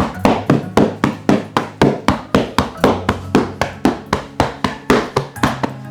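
Rapid, even percussive strikes on the body during a manual-therapy session, about four a second, over background music with a low steady tone.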